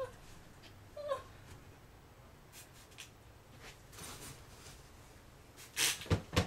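A hand-pump trigger spray bottle squirted twice in quick succession near the end, short hissing sprays. A short, high squeak-like sound about a second in.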